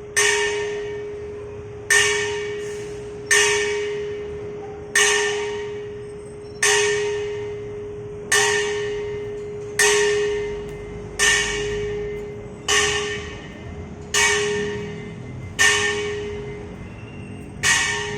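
A metal bell struck repeatedly, about once every one and a half seconds, each strike ringing out and fading before the next: the alarm signal of an earthquake drill.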